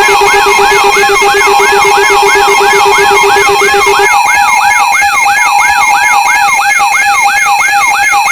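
Electronic alarm siren: a rising whoop repeating about two and a half times a second over layered steady alarm tones. A lower hum-like tone cuts out about halfway through.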